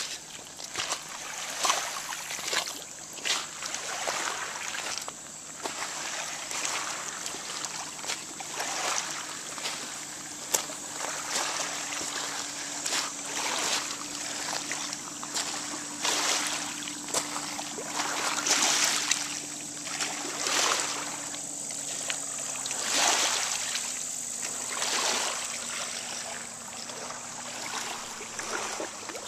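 Small waves lapping and splashing irregularly against the stones at a rocky lake shore, with a faint steady low drone underneath that drops slightly in pitch near the end.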